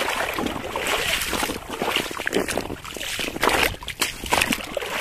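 Shallow seawater splashing and sloshing in uneven surges as someone wades through it.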